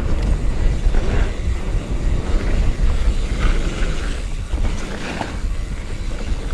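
Wind buffeting the camera microphone over the rolling of mountain-bike tyres on a dirt trail at speed, with scattered clatter from the bike over the bumps.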